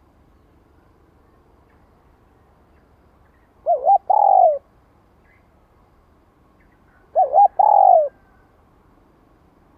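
Spotted dove cooing twice, a few seconds apart. Each call is two short quick notes followed by a longer note that falls in pitch.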